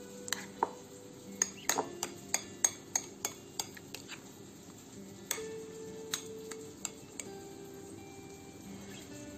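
Metal spoon stirring a thick sauce in a small glass bowl, clinking sharply against the glass about three times a second, then only now and then after about four seconds. Background music with held tones plays underneath.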